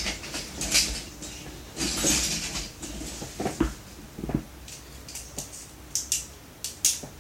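Plastic Beyblade parts and their container being handled: irregular rustling and light plastic clicks and knocks.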